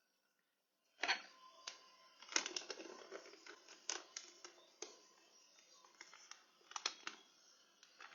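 Bag of parrot pellets being handled: plastic crinkling with pellets rattling and a string of sharp clicks, starting about a second in.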